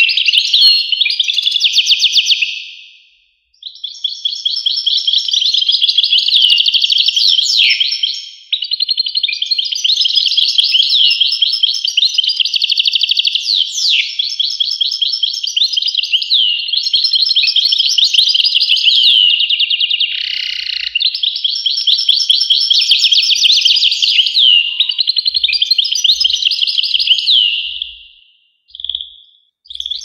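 European goldfinch singing: long runs of fast, jangling twitters and trills, broken by short pauses a few times.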